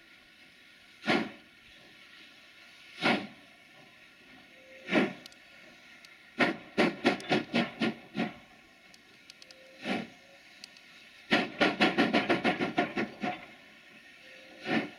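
JS-class 2-8-2 steam locomotive starting a heavy coal train, its exhaust beats loud and slow, about two seconds apart. Twice the beat breaks into a sudden run of rapid chuffs and then falls back to the slow beat: the driving wheels slipping as the engine struggles for grip.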